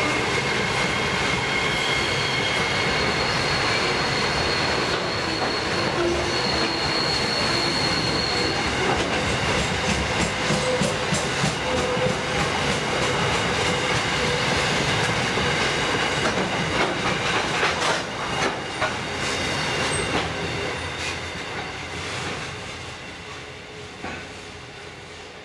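Loaded grain hopper wagons rolling past, their wheels rumbling and clacking over the rail joints, with a high wheel squeal over the first several seconds. The sound falls away from about eighteen seconds in as the end of the train passes and moves off.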